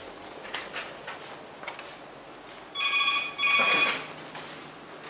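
Two short electronic ringing tones, about half a second each, sounding back to back about three seconds in. They are accompanied by light footsteps on a hard floor.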